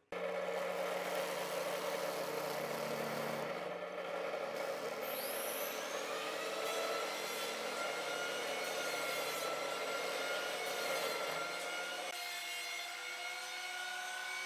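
Benchtop drill press running, its twist bit boring the centre hole through a wooden clock face: a steady motor hum with whining tones that rise in pitch about five seconds in. The low hum drops away about twelve seconds in.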